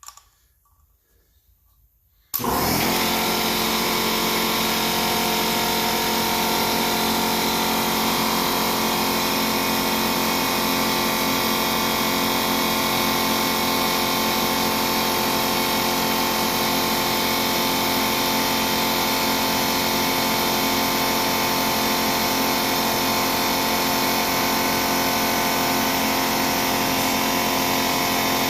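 Electric air compressor kicking on abruptly about two seconds in, then running steadily at a constant pitch.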